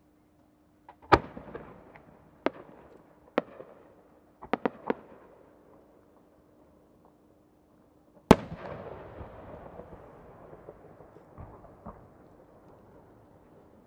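Fireworks: a 10-gō (about 12-inch) multi-core chrysanthemum shell with rising effects. Sharp single bangs come over the first five seconds, including a quick run of three. The loudest bang comes about eight seconds in, with a long rolling echo that dies away over several seconds.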